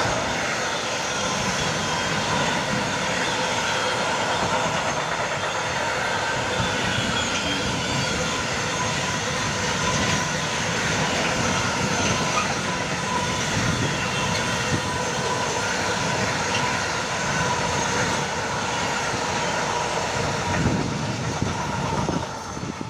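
Train hauled by an EU46 electric locomotive passing close by, its wagons rolling past with steady wheel-on-rail noise and a faint steady whine. The noise drops away just before the end.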